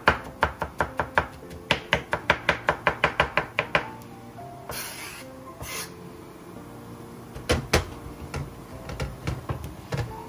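Chef's knife chopping zucchini flesh on a wooden cutting board, quick even strikes about four or five a second, which stop about four seconds in. A few scattered knocks follow near the end.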